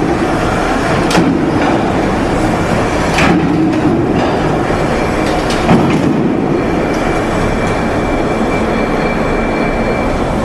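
Railway train moving along the track: a loud, steady rumble and rush of noise, with a few sharp clanks and a faint thin squeal in the second half.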